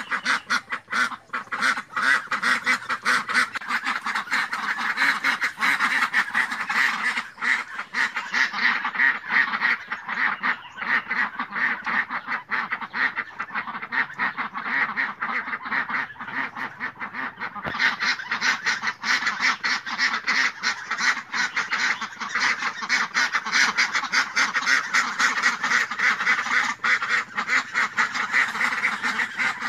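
A flock of domestic ducks quacking without a break, many calls overlapping into a dense chatter.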